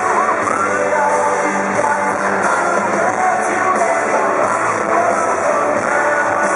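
Live pop-rock band music with electric guitar and a singer, played loud over an arena sound system.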